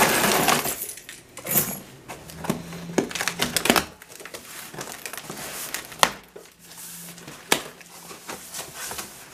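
A key dragged through packing tape on a cardboard box, then the stiff cardboard flaps pulled open and folded back, scraping and rustling in short bursts with two sharp clicks in the second half.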